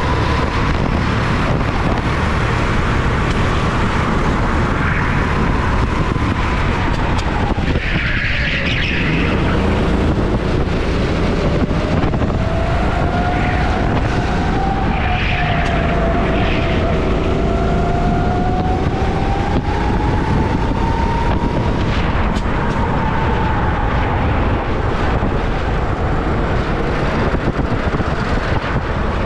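Sodi rental go-kart engine running at racing speed, heard onboard under heavy wind and track noise. Its pitch drops about seven seconds in, climbs steadily for several seconds, then falls again near the end. The engine of another kart running close alongside is heard too.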